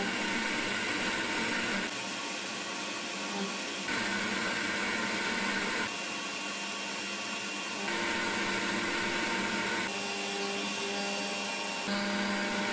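Makera Z1 desktop CNC mill's spindle running as a 30-degree V-bit carves an epoxy block turning on the rotary fourth axis, with the vacuum extraction running: a steady hiss with a few held whining tones. The sound shifts abruptly in level and pitch about every two seconds.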